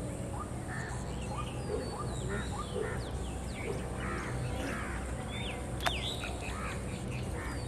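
Birds chirping all around, with several short crow caws, and one sharp click about six seconds in.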